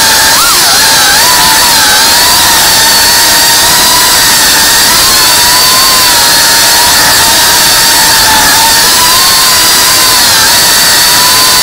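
FPV racing quadcopter's electric motors and propellers whining loudly, recorded from the drone itself, over a constant rushing hiss of prop wash. The pitch holds roughly level but wavers up and down with throttle, with a quick rise and fall about half a second in.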